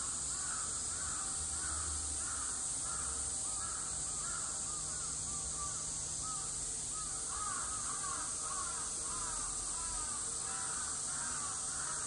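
Outdoor ambience of calling animals: a steady high-pitched drone with quick, repeated arched chirping calls over it.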